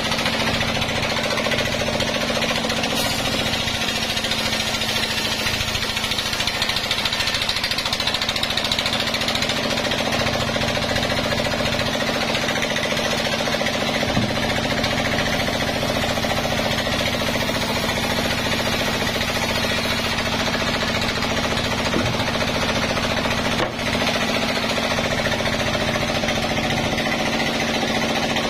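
Sawmill saw running steadily while a log is fed through it: a constant machine hum under the dense rasp of the blade cutting wood.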